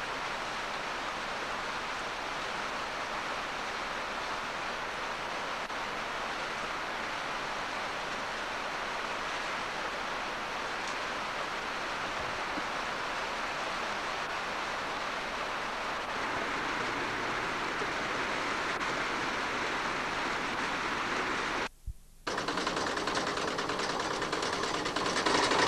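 Steady hiss of heavy rain falling, recorded on an old camcorder. About 22 seconds in it cuts out for a moment and gives way to the slightly louder rush of a flooded mountain stream.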